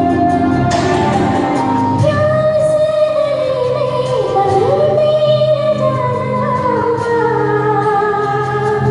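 A woman singing a slow Bollywood song over an instrumental backing track; the backing plays alone at first and her voice comes in about two seconds in.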